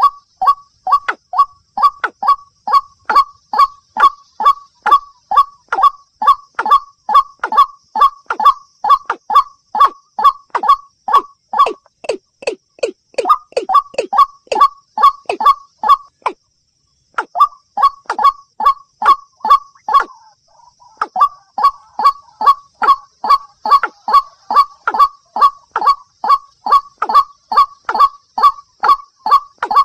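Watercock and white-breasted waterhen calls played as a bird-lure recording: a loud, short, falling call note repeated about two to three times a second, with a break of about a second near the middle.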